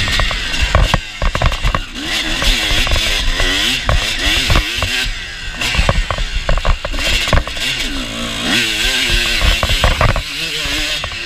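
Kawasaki KX 250 motocross bike's engine at full race pace, its pitch climbing and dropping again and again as it is revved and shifted through the gears. Sharp knocks and wind rush on the microphone are heard along with it, from the bike-mounted view.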